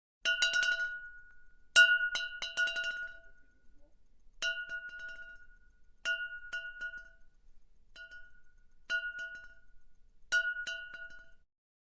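A glass bottle struck again and again, in short clusters of two or three taps, each hit ringing with one clear bell-like tone that dies away within about a second.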